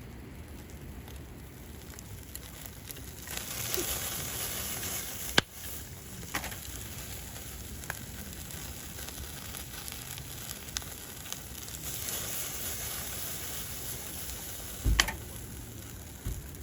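A fire crackling and hissing steadily, with scattered sharp pops. The hiss swells louder twice.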